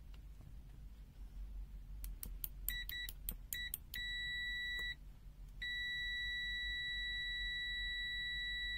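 Chauvin Arnoux CA5215 multimeter's continuity beeper sounding as continuity is detected. It starts with a few faint clicks and short chirps about two seconds in, then gives a steady high-pitched beep of about a second. After a brief break it sounds again and holds one continuous beep.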